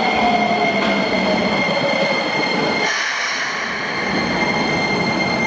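Keisei 3000 series electric train pulling into an underground station platform, its motor whine falling steadily in pitch as it slows, over a steady high squeal. About three seconds in, the whine stops and a hiss takes over.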